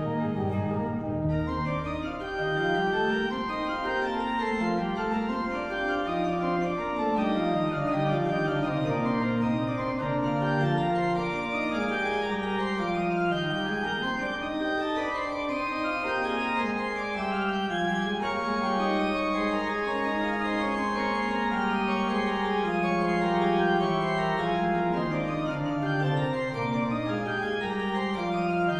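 Organ music with sustained chords and melody lines that step up and down in pitch.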